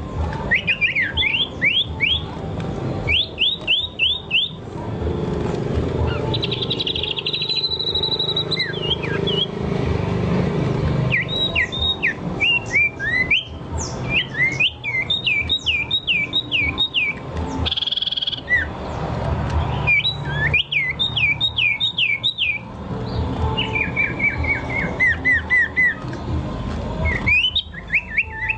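A songbird singing in repeated bursts of quick, sharply dropping whistled notes, several a second, with a rapid trill early on and a short buzzy note about two-thirds of the way through, over a steady low rumble.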